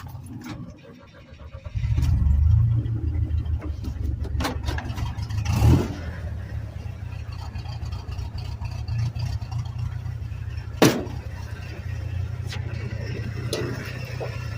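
Chevrolet S10's rebuilt 2.5L Iron Duke four-cylinder engine starting up about two seconds in, just after it had stalled. It runs faster at first, then settles into a steady idle. Two sharp knocks sound, one near six seconds and a louder one near eleven.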